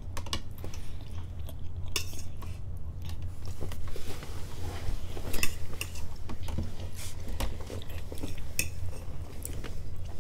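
Metal forks clinking and scraping against plates in irregular short clicks as spaghetti is twirled and eaten, over a steady low hum.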